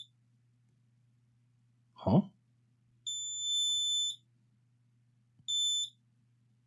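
Multimeter continuity beeper sounding twice, a steady high beep about a second long and then a shorter one, as the probes find about 0 ohms across a laptop power-rail coil: the rail is shorted to ground. A short grunt from the technician comes just before the first beep.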